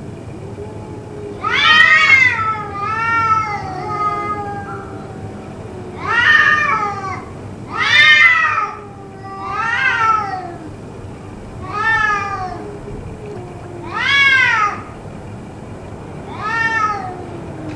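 A cat yowling over and over: loud drawn-out calls about every two seconds, each rising and then falling in pitch, with a fainter low, wavering moan between them. The uploader takes it for a possible cat fight.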